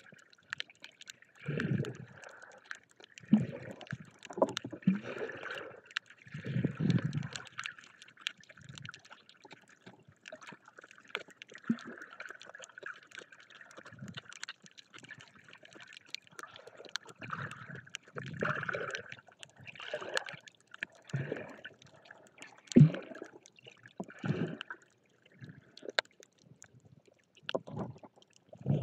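Underwater audio from a snorkeler's camera: muffled water sloshing and gurgling in irregular low surges, over a faint steady hiss with scattered small crackles. A single sharp knock sounds about two-thirds of the way through, the loudest moment.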